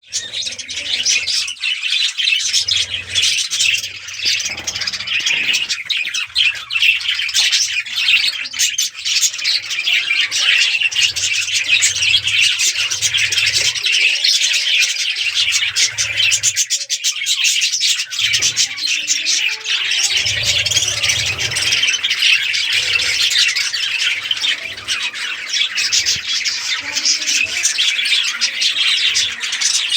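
A colony of budgerigars chirping and chattering all at once in a dense, continuous high-pitched din.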